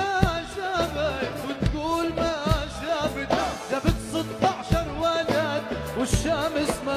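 Background song: a wavering, ornamented singing voice over a drum beat that falls about once every second.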